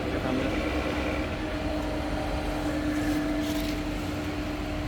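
ZX7032 drill-milling machine running steadily under power, its spindle motor and gearing giving a steady hum with a constant whine, while it cuts a thread with a tap.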